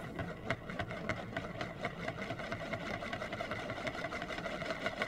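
A round disc spinning and wobbling on a wooden tabletop, a steady whirring rattle with a light click about three or four times a second.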